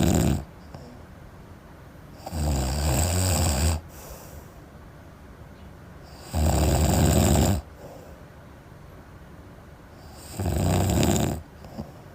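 A sleeping person snoring heavily: loud, rough snores, each lasting about a second, coming about every four seconds with quiet breathing gaps between them.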